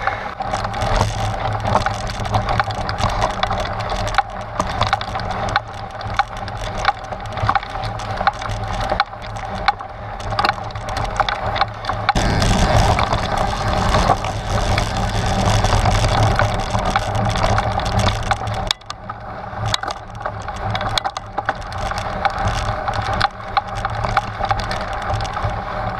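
Trek Stache 9 29+ mountain bike tyres crunching over loose rock and gravel on a climbing trail, with a dense, continuous run of clicks and knocks from the stones and the bike rattling. It grows louder for several seconds around the middle.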